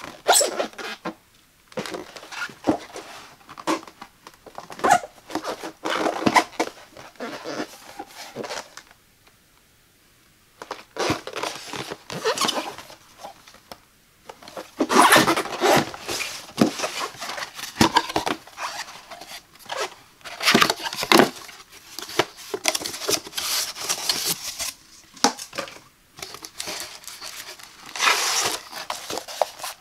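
A cardboard knife-set box being handled and unwrapped: plastic shrink wrap crinkling and tearing, with cardboard rubbing, tapping and flaps being opened, in irregular bursts with a couple of brief pauses.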